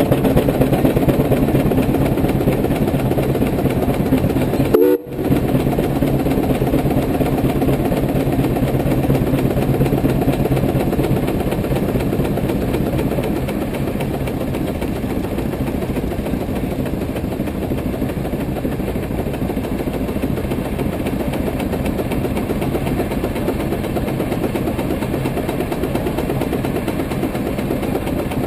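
110 hp Case steam traction engine working under load on a brake, its exhaust beating steadily from the stack. The level eases a little after about thirteen seconds, and a brief dropout cuts the sound about five seconds in.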